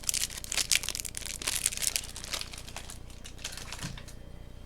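Plastic wrapping on trading card box contents crinkling and rustling as it is handled, a dense run of quick crackles that thins out after about two and a half seconds.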